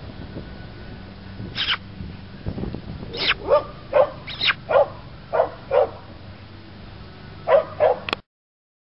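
A dog barking repeatedly: about a dozen short barks in irregular bunches, over a low steady background hum. The sound cuts off suddenly near the end.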